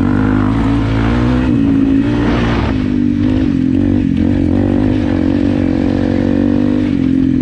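Single-cylinder motorcycle engine running while ridden, its pitch dipping and rising a little with the throttle.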